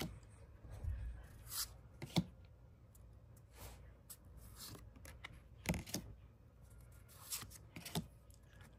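Trading cards and a foil booster-pack wrapper being handled: intermittent rustling and card slides, with a few sharper clicks about two, six and eight seconds in.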